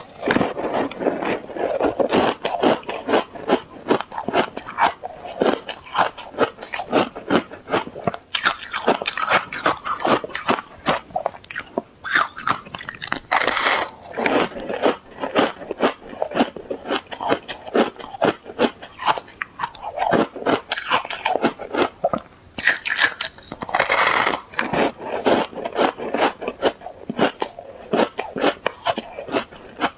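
Ice being chewed close to the microphone: rapid, loud crunching bites, several a second, with brief pauses.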